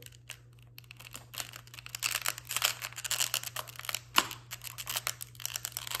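Thin plastic water bottle and rubber balloon being handled and squeezed: a run of small irregular crinkles and clicks, over a steady low hum.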